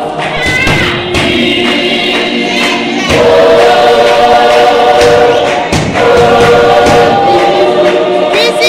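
Gospel choir of men's and women's voices singing together in harmony, with hand claps. The singing grows louder about three seconds in.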